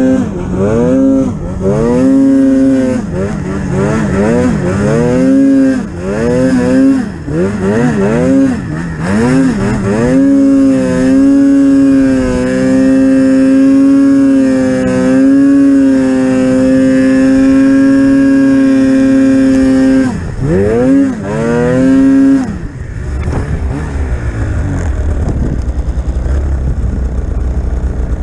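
Polaris Pro RMK 800 snowmobile's two-stroke twin engine revving up and down over and over, then held at steady high revs for about ten seconds. It blips a few more times and drops off about three-quarters through, leaving a low rumble.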